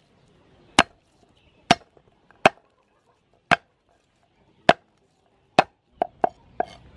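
Cleaver striking garlic cloves on a wooden chopping board, crushing them one at a time: six sharp whacks about a second apart, then a quicker run of strikes near the end.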